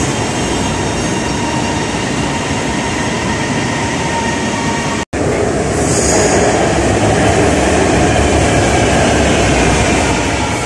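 Lahore Orange Line metro train running along an elevated station platform: steady rail and running noise with a faint thin whine. The sound drops out briefly about five seconds in, then comes back somewhat louder.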